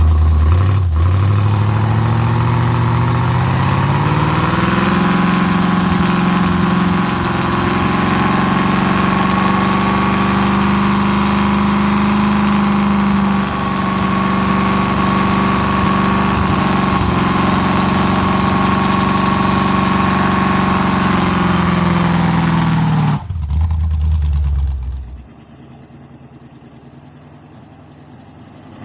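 Engine revving up and held at a steady high speed for about twenty seconds, then dropping back and shutting off.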